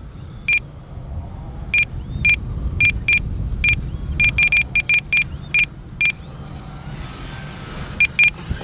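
Short, high electronic beeps from a radio-control transmitter, over a dozen at irregular spacing with a pause of about two seconds near the end, over a steady low rumble of wind on the microphone.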